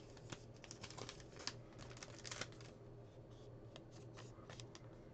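Faint rustling and light clicking of a trading card being handled and slid into a soft clear plastic sleeve, busy for the first couple of seconds, then sparser.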